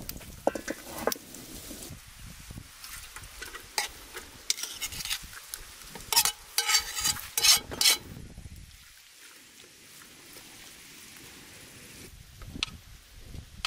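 Cooked rice being scraped off a round aluminium tray into a large metal pan over a campfire, the tray scraping and clinking against the pan's rim, loudest about six to eight seconds in. Then a spoon turns the rice in the hot pan over a faint steady sizzle.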